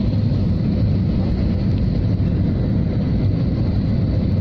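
Steady low rumble of an airliner cabin in flight: engine and airflow noise heard from a window seat, with a faint steady hum on top.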